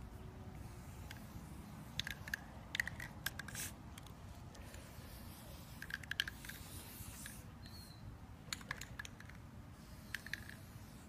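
Clusters of short sharp clicks and light scraping from spray-painting work: a spray paint can and an air rifle being handled on a cloth drop sheet.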